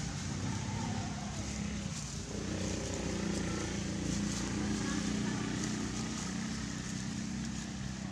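A steady low mechanical hum, like a motor running, with indistinct voices in the background.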